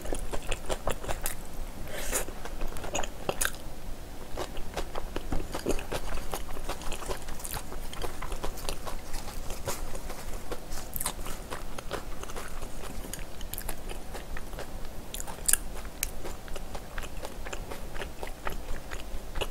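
Close-miked chewing and biting of a mouthful of food, with frequent short crunches and clicks throughout.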